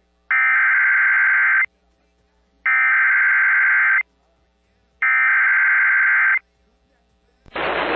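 Emergency Alert System SAME header: three bursts of buzzing digital data tones, each about a second and a half long with a second of silence between. The header opens a flash flood warning.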